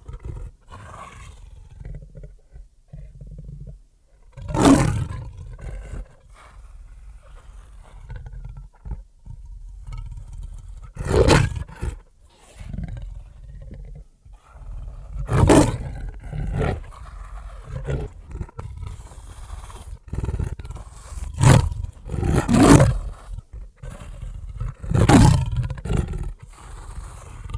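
Black leopard roaring: about six loud, hoarse roars spaced a few seconds apart, with a low rumbling between them.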